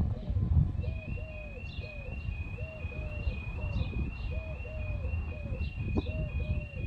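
Level crossing alarm starting about a second in: a fairly high-pitched tone stepping evenly back and forth between two notes. A pigeon coos low underneath throughout.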